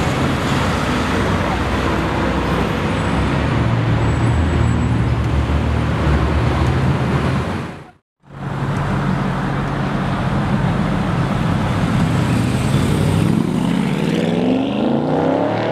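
Sports car engines in city street traffic. First one car's engine runs low and steady over the traffic. Then, after a brief break, another car accelerates past, its engine note rising steadily over the last couple of seconds.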